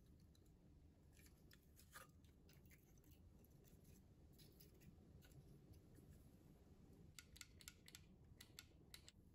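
Faint, scattered clicks and light scraping of the plastic frame of a paper film projector kit being handled and prodded with a thin wooden stick, in small clusters with a denser run of clicks near the end.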